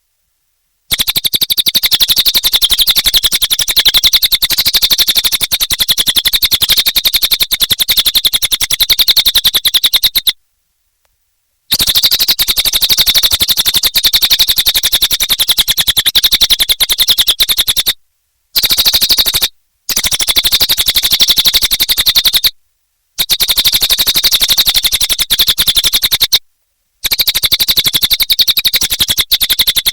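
Cililin songbird singing a loud, high-pitched, very rapid chattering trill in long runs, broken by sudden short gaps.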